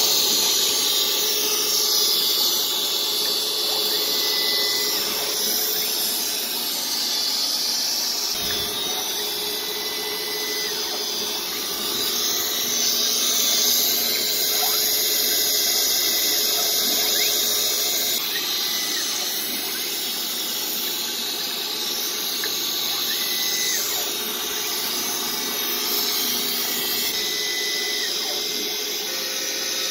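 Tormach PSG612 surface grinder with a Norton 5SG 46H wheel grinding the steel top of a magnetic chuck flat under mist coolant. It makes a steady high hiss over a faint hum, swelling and easing every few seconds as the table traverses.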